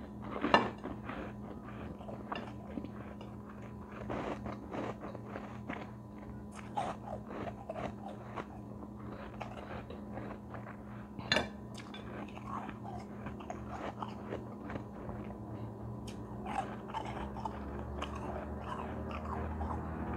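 A person biting and chewing a chunk of frosty white ice: loud crunching bites about half a second in and again about eleven seconds in, with brittle crackling crunches between them.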